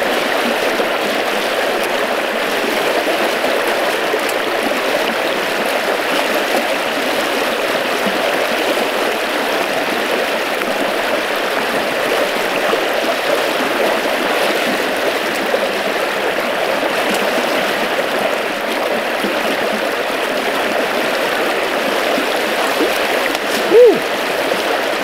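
A small river's fast current rushing steadily, with one short, louder sound near the end.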